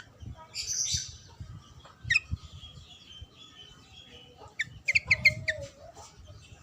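Yellow-vented bulbul (trucukan) song: short bubbly chirps, with a quick run of notes about two seconds in and a cluster of several notes around five seconds, over a low rumble.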